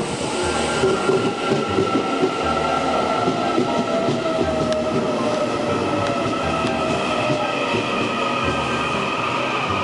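Taiwan Railways EMU800 electric commuter train pulling out of a station platform, its traction motors whining in several tones that slowly glide in pitch as it gathers speed, over the rumble and rattle of the wheels on the rails.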